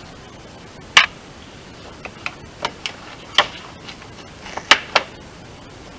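A string of irregular sharp clicks and knocks, about eight in a few seconds, the loudest about a second in and two close together near the end, as gloved hands work at the plastic wheel-arch liner and front wing of a VW Golf IV.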